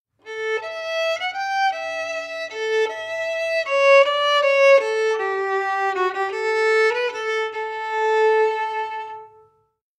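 A single melodic instrument playing a short legato melody of about a dozen notes, the last one held long: an extract played for aural dictation. It starts about half a second in and stops about a second before the end.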